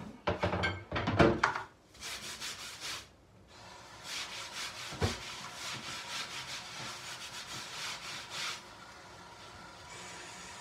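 Washing up at a kitchen sink: dishes and utensils clatter for the first couple of seconds, then fast scrubbing runs for several seconds, with one knock about five seconds in.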